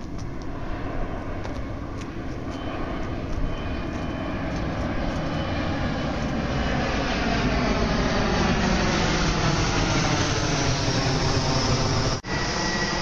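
Engine noise of a passing vehicle, growing steadily louder for the first eight seconds and then holding, with a brief sudden dropout near the end.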